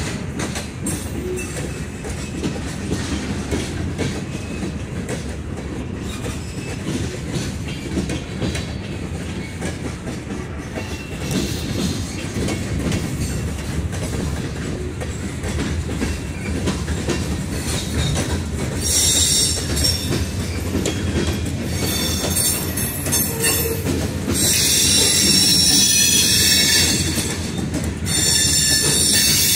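Freight cars of a CSX local freight train rolling past, a steady rumble of wheels on rail. About two-thirds of the way through, a high-pitched wheel squeal sets in and comes and goes; it is loudest near the end.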